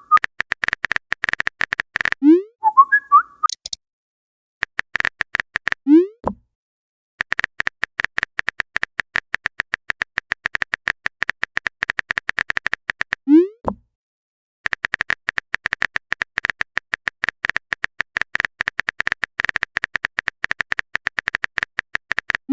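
Typing sound effect of rapid clicks in long runs, broken about four times by a short rising 'bloop', the pop of a chat message being sent or received. A brief chirpy warble comes in after the first pop.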